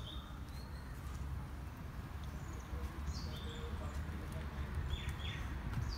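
Short, high bird calls, a few quick notes repeated several times, over a low rumble of footsteps climbing concrete steps.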